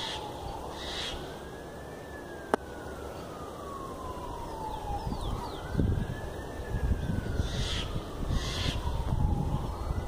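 Emergency vehicle siren on a slow wail, its pitch climbing quickly and then sliding slowly back down about every four seconds. There is a sharp click about two and a half seconds in, and from about six seconds a rough crackling, scraping noise rises beneath the siren.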